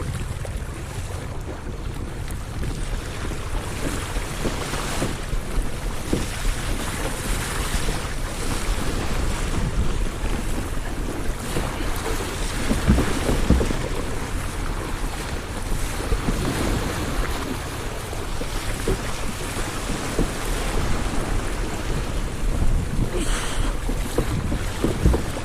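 Wind rumbling on the microphone over water rushing and splashing along the hull of a Hobie Adventure kayak moving through waves.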